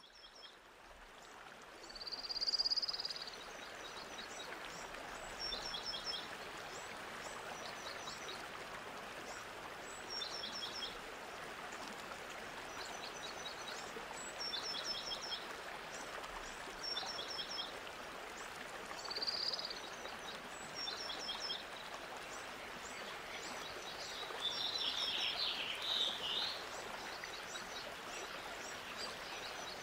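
Small birds calling over a steady outdoor hiss: quick groups of three or four high clipped notes repeated every second or two, a louder slurred whistle about two seconds in and again about twenty seconds in, and a burst of busier chattering calls near the end.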